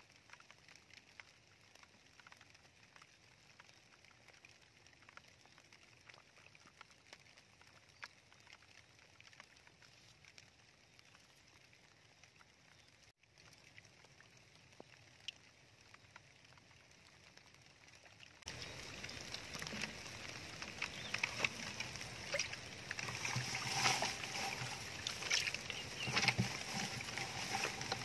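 Shallow muddy water sloshing and splashing in many small irregular splashes. It starts suddenly about two-thirds of the way through and grows louder toward the end; before that there are only faint scattered ticks.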